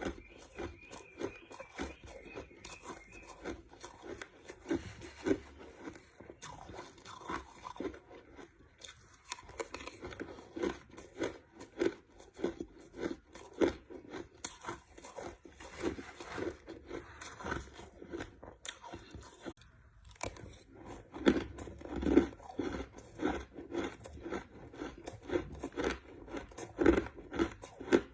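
Crushed ice being bitten and chewed: repeated sharp crunches, several a second, with brief pauses between mouthfuls.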